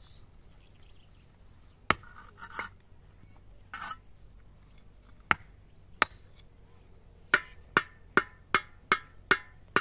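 Sharp, ringing knocks, as of something hard struck repeatedly: a few single strikes spread out at first, then a steady run of about six strikes, roughly two and a half a second, near the end. Two short scraping noises fall between the early knocks.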